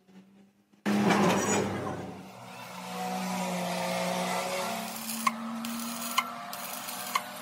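A metal lathe starts suddenly about a second in and runs steadily with a cutting tool facing a cylinder head. Three sharp ticks come about a second apart near the end.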